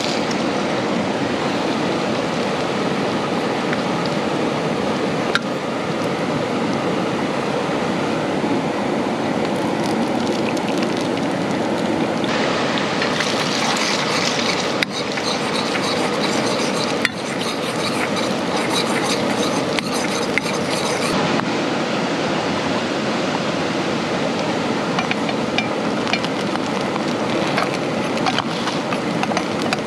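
Heavy rain falling steadily, with scattered sharp clicks of drops striking nearby.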